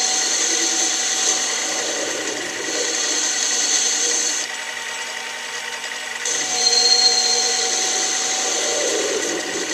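Small metal lathe running with a steady motor whine while the cutting tool works the bar stock, its cutting hiss stopping for about two seconds midway and then starting again.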